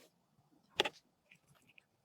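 PC parts being handled during assembly: one sharp double click a little under a second in, then a few faint small ticks.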